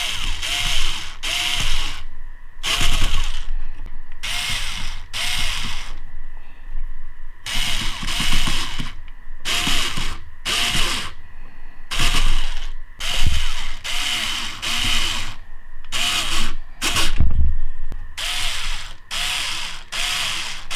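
Ryobi 4V cordless screwdriver driving small screws into a plastic RC buggy chassis, in about twenty short stop-start bursts of up to a second each. Each burst opens with a brief motor whine as the bit spins up.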